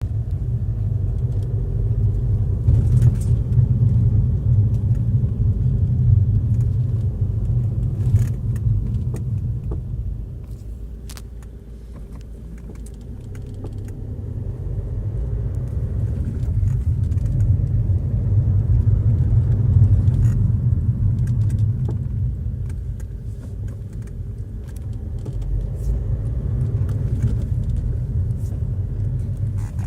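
Alfa Romeo GT driving at low speed: a steady low rumble from the road and drivetrain that falls away around the middle as the car slows, then builds again as it pulls off. A few sharp clunks sound through it, the clunking the owner hears when starting from a standstill and when braking.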